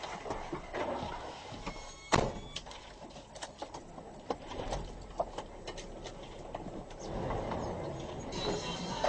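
Backhoe at work: scattered metal clanks and knocks, with one loud bang about two seconds in and a brief squeal around it.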